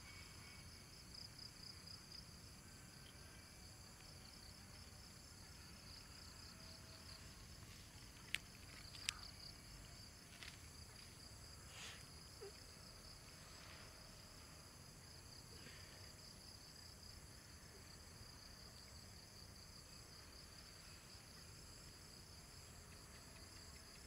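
Faint, steady insect chorus: a high, even, pulsing trill of crickets. Two sharp clicks about eight and nine seconds in.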